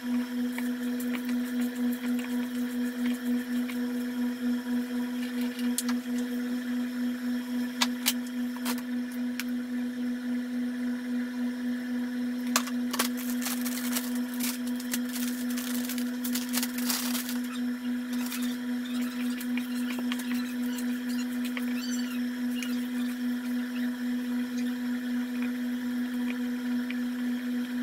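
A steady low electrical hum with overtones, pulsing slightly in loudness. Scattered faint clicks and squishes from hands mixing ground meat in a stainless steel bowl, mostly in the middle.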